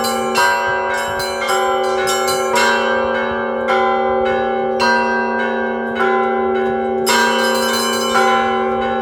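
Cathedral bells rung together in an ensemble peal (zvon): small bells struck in quick, irregular patterns over a steady low ringing tone, with a bright cluster of strikes about seven seconds in.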